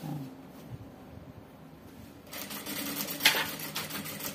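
An industrial sewing machine starts stitching about halfway through and runs fast with a rapid, even clatter. Before that there is only a faint hum and the fabric being handled.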